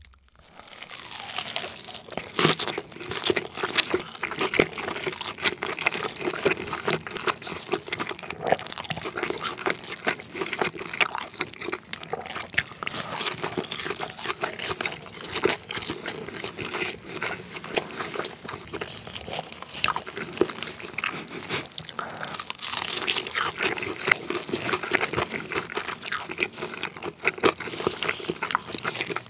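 Close-miked biting and chewing of crunchy glazed fried chicken: crisp batter crackling and crunching in quick, irregular bites.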